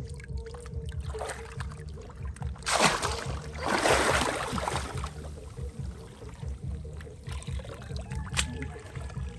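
Hands splashing hard in shallow, muddy paddy water, in two loud bursts about three and four seconds in, over background music.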